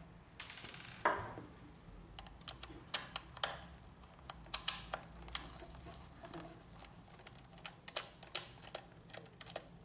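Faint clicks and ticks of a screwdriver turning out the small screws of the chip holder on a plastic laser-printer drum unit, with light handling taps against the plastic frame. A short rapid run of clicking comes about half a second in, then scattered single clicks.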